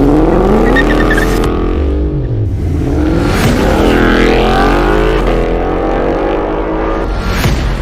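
Ford Mustang GT's 5.0-litre V8 with an aftermarket catback exhaust, revving, its engine note rising and falling several times over a steady low rumble.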